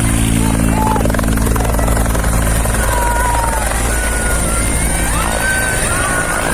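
Helicopter running loud and close: a steady low rotor beat under a high, even whine. The lowest part of the beat drops away about three seconds in.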